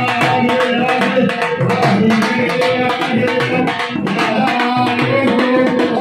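Music: a steady hand-drum rhythm under sustained held melodic notes, with no speech.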